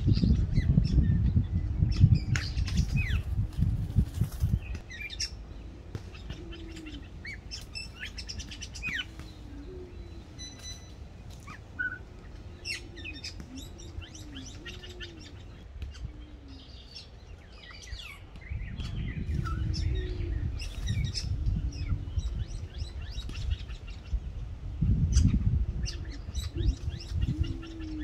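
Wild pigeons cooing, a series of low calls that each rise and fall, over the scattered high chirps of small birds. Low rumbling noise comes and goes at the start, about two-thirds of the way through and near the end.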